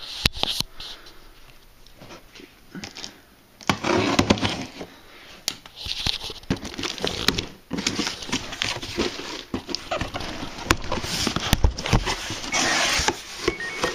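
A cardboard shipping box being opened by hand: irregular rustling, scraping and tearing of cardboard and packing material, broken by sharp clicks and knocks, with louder bursts of rubbing about four seconds in and again near the end.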